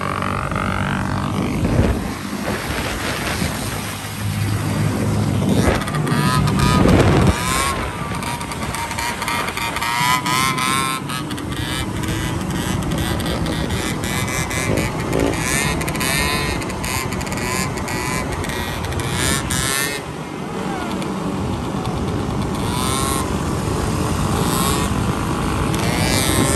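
Several motorcycle engines, dirt bikes and a scooter, running and revving up and down as they ride together.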